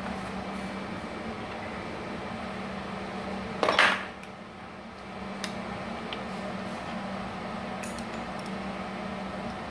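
Steady hum of a switched-on Multipro MMAG 600 welding machine, with one short, loud metallic clatter about four seconds in and a couple of light metal clicks later as a welding electrode is handled.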